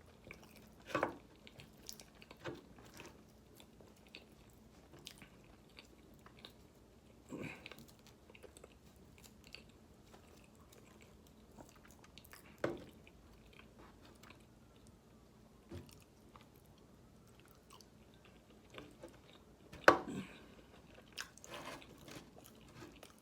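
Close-miked chewing and biting of fried chicken, with wet mouth smacks and scattered short clicks. The sharpest bites come about a second in and again near the end.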